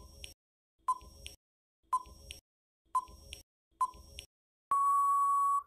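Quiz countdown timer sound effect: five short beeping ticks about a second apart, each followed by a fainter second click, then one long steady beep about a second long that marks the time running out.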